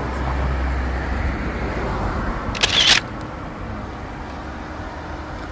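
A camera shutter sound, a short sharp burst about halfway through, over a steady low background rumble.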